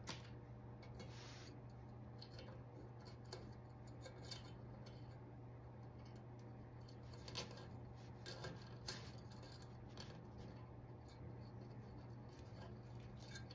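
Faint handling sounds of a plastic zip tie being threaded through a hole in a metal cooking pot's rim: a few small, scattered clicks and scrapes.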